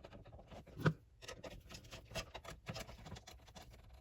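Small clicks and scratches of wires being pushed into the back-wire holes of a GFCI receptacle and handled, with one louder click about a second in.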